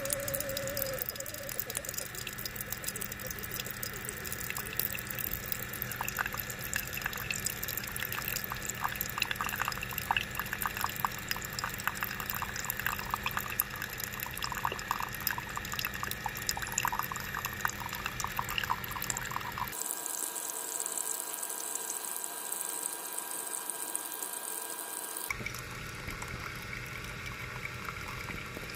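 Keurig K-Mini single-serve brewer dispensing coffee in a thin stream into a mug: a steady trickle and splashing of liquid filling the cup. About two-thirds through there are several seconds of steady high hiss before the trickle returns.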